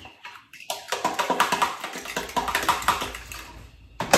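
Fork beating eggs and seasonings in a plastic container: a quick run of clicking taps against the sides, starting about a second in.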